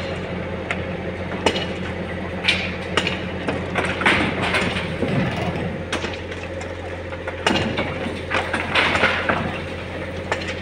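Engine of a truck-mounted crane lift running steadily under irregular sharp knocks and crumbling crashes of masonry being broken off a building cracked by the earthquake, being demolished. The crashes are loudest about four seconds in and again near the end.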